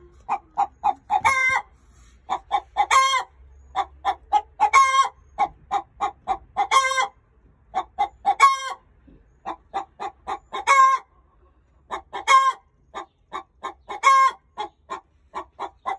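Light Brahma hen cackling the egg song: runs of short clucks, each capped by a longer, louder drawn-out call, repeating about every two seconds. It is the cackle a hen gives after laying an egg.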